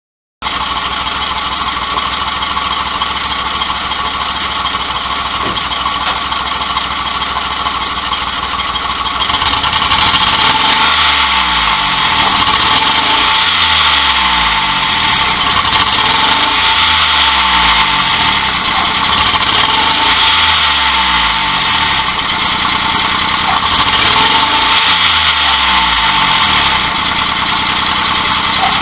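Daihatsu S201P Hijet engine running with a steady whine. About nine seconds in it grows louder, then swells and falls in a repeating cycle about every two seconds. The engine will not rev up cleanly and makes an abnormal noise.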